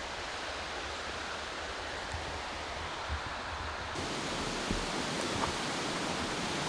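Steady rushing of water. About four seconds in it becomes brighter and fuller, the rush of a nearby waterfall.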